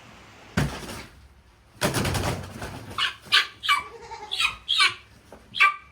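Guinea fowl giving short, harsh calls, a few a second, in the second half, after two bursts of scuffling noise near the start.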